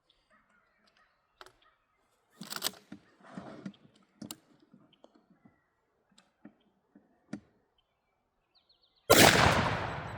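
A 12-gauge Mossberg 500 pump shotgun fires one 3-inch turkey load about nine seconds in: a single sharp blast, the loudest thing here, with a long echo dying away. Before it there are only faint scattered clicks and rustles.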